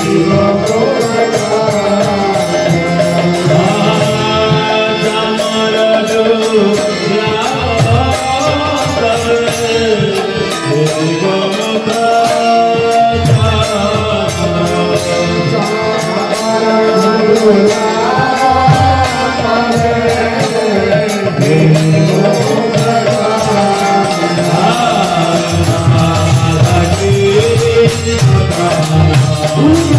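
Devotional kirtan: a lead singer sings a Bengali bhajan over a harmonium, with a steady percussion beat running under the melody.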